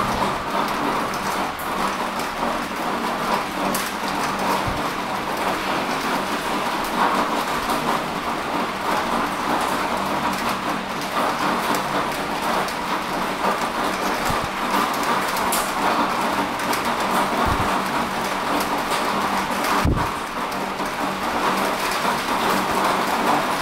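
Heavy rain falling steadily as a dense, even hiss, with a few brief low thumps scattered through it.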